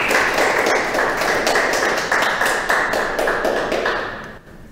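Audience applause: many people clapping densely, dying away shortly before the end.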